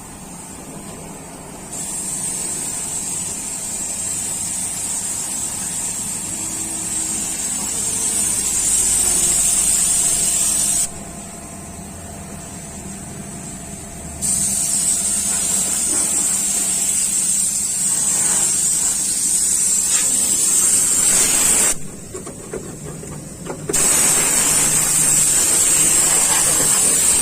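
A loud, steady hiss of a jet of spray or air, turned on and off in long bursts: it starts about two seconds in, stops and restarts twice, and is still running at the end.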